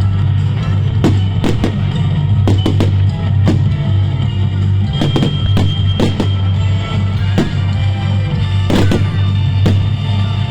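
Music with a heavy bass line and drums, with fireworks going off over it in sharp bangs every second or so.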